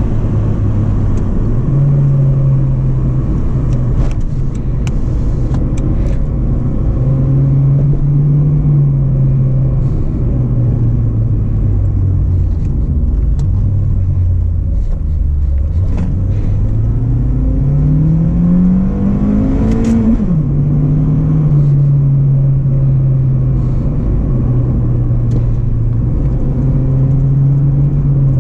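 Acura RSX Base's 2.0-litre K20 four-cylinder engine heard from inside the cabin under way, its note rising and falling with the throttle. About halfway through it sinks low, then climbs in one long pull for about four seconds before the automatic shifts up and the pitch drops sharply, then it runs on steadily.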